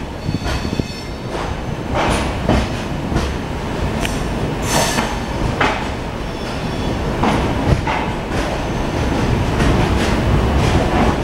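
Passenger coach wheels running on the rails, heard from the coach's open doorway: a steady rumble with irregular clacks and knocks as the wheels pass over rail joints, and a brief high wheel squeal in the first second.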